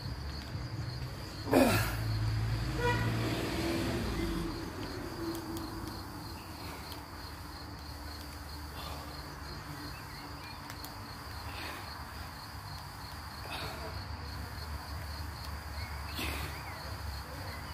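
Crickets chirring steadily throughout. A motor vehicle passes early on, with a brief sharp noise about one and a half seconds in and an engine note that drops in pitch as it goes by. Faint short sounds come every two to three seconds after that.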